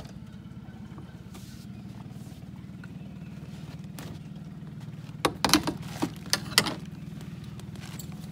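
Steady low hum of an electric trolling motor on an aluminum boat. About five seconds in comes a quick run of six or so sharp knocks and clatters, the loudest sounds here.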